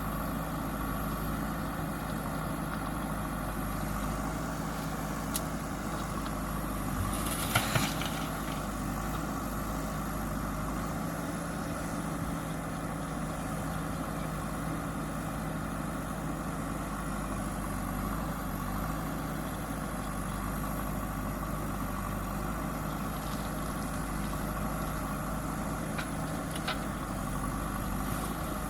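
JCB backhoe loader's diesel engine running steadily at a constant speed, with a short loud burst of noise about seven and a half seconds in.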